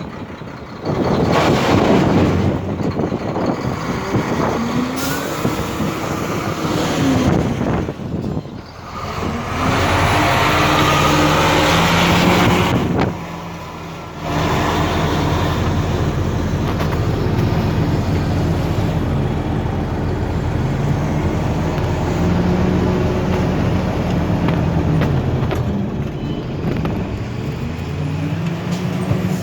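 Heavy truck engines running and revving up and down several times, with stretches of loud rushing noise and a short lull about halfway through.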